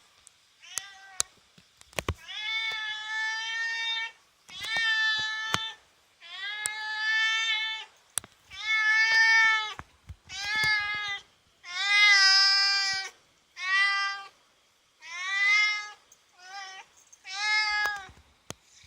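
Domestic cat meowing over and over, about a dozen drawn-out, high meows one after another, with a few sharp clicks between the first ones. The cat is calling at a cicada outside the window that it wants to catch.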